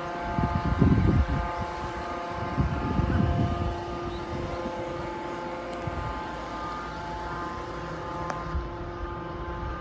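A steady mechanical hum made of several held tones, unchanging in pitch, with wind gusting on the microphone in the first few seconds.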